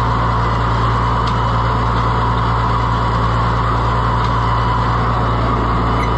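Allis-Chalmers 200 tractor engine running steadily with no exhaust pipe fitted, while the hydraulics are being cycled.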